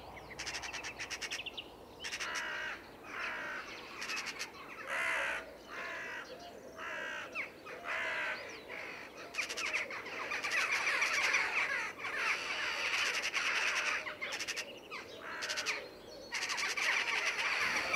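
Corvids calling: bursts of harsh, rapid rattling chatter, typical of magpies, alternating with caws. The calls are busiest from about ten seconds in.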